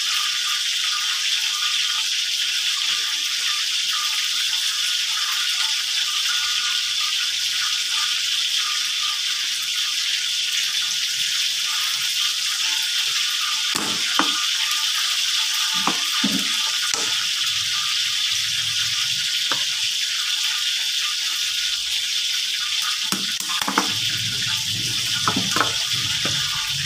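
A steady high hiss runs throughout. Over it come soft squelching and knocking from hands kneading flour, margarine and water into dough in a plastic bowl, more of it in the second half, and a plastic water bottle is handled about halfway through.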